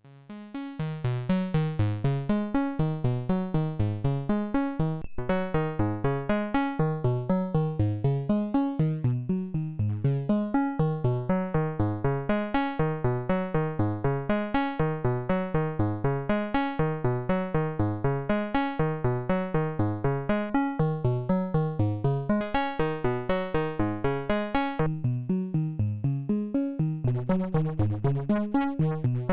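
Analog oscillator synth based on the 3340 VCO chip playing a fast sequence of short pitched notes, about four a second. It fades in at the start, and its tone colour shifts brighter and thinner a few seconds before the end.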